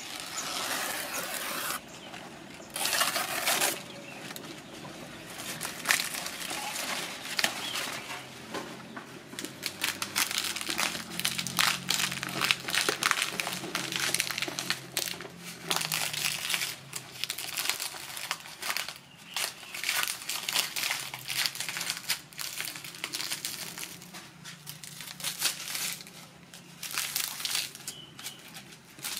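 Fresh banana leaves rustling and crinkling in irregular bursts as hands tear, roll and stuff them into a green bamboo tube.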